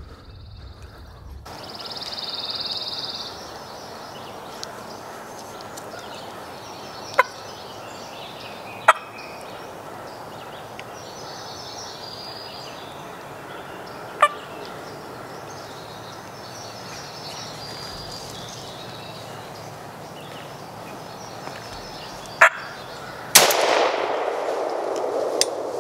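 Wild turkey gobbler gobbling loudly close by near the end, over a steady background of songbird calls. A few sharp clicks come earlier.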